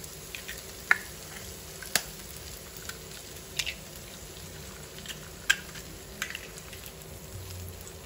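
Eggs and spice paste frying in oil in a nonstick pan, a steady low sizzle. Scattered sharp taps and cracks stand out, about six in all, as eggshells are broken open over the pan.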